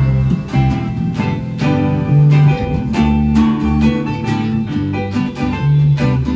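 Acoustic guitars strumming a steady rhythm, with a bass guitar playing low notes underneath.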